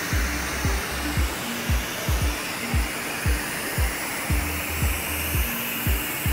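Aerosol spray paint can hissing steadily as it sprays paint onto a bicycle rim, over background music with a steady beat of about two thumps a second.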